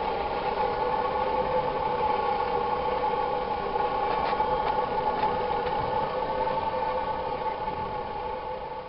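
Homemade downdraught wood gasifier rig running: a steady mechanical hum with two held tones over a rushing noise, getting quieter near the end.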